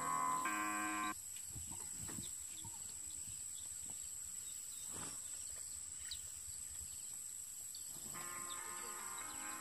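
Background instrumental music that cuts off about a second in and comes back near the end. Between, faint outdoor ambience: a thin steady high-pitched hum with a few scattered faint chirps.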